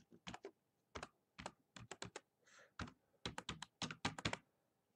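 Typing on a computer keyboard: irregular runs of separate key clicks as a word is keyed in, with a short pause a little past halfway and a quick run of keystrokes after it.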